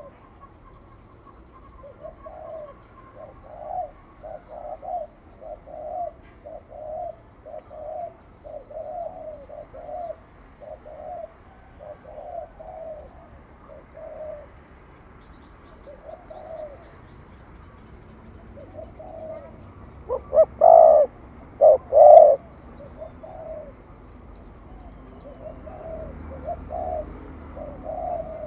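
Spotted dove (cu gáy) cooing in quick 'thúc gù' runs: a long string of soft, short coos, then a few much louder coos about twenty seconds in.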